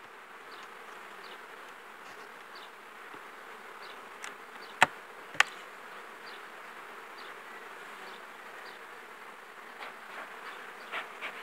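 Honeybees buzzing steadily around an opened hive, with a few sharp knocks in the middle as the hive is handled.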